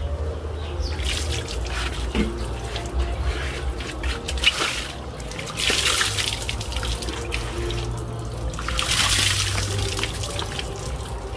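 Water running and splashing in three spells, about a second, five seconds and nine seconds in, during a baby monkey's bath.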